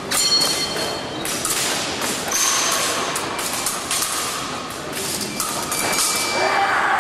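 Épée bout in progress: the fencers' footwork thuds on the piste, and the steel blades clash, with a short high ringing clash about a quarter second in. Reverberant hall noise runs underneath.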